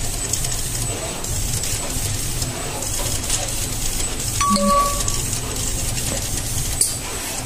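Automatic colour-dispensing machine running with a low hum, a faint high whine and small clicks and clinks, and a short tone about four and a half seconds in.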